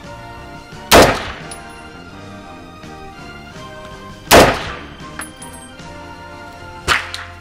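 Rifle shots over background music: two loud cracks about three and a half seconds apart, each with a ringing tail, then a quieter sharp double crack near the end.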